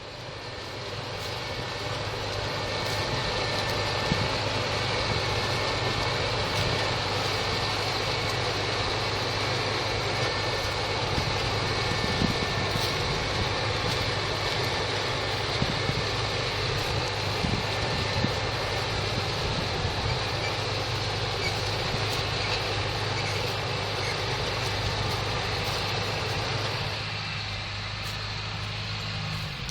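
Claas Arion tractor and trailed Grimme SE 75-30 potato harvester running steadily in the field: a constant engine hum under the even noise of the harvester's machinery. The sound eases slightly near the end.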